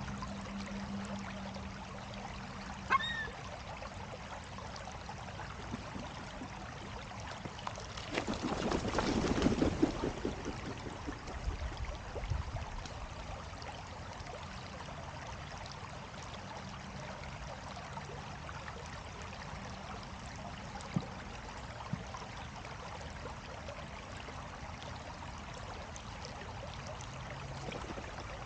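Steady sound of moving water with a single short gull call about three seconds in, and a louder rush of noise lasting a couple of seconds about a third of the way through.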